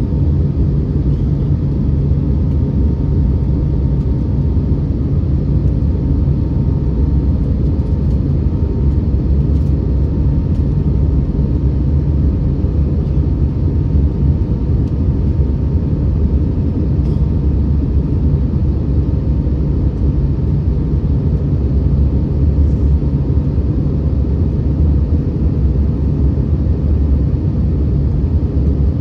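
Steady cabin noise of an Airbus A321neo climbing out after takeoff: a low, even rumble of its Pratt & Whitney geared turbofan engines and the airflow past the fuselage, heard from a window seat. A faint steady whine fades out a few seconds in.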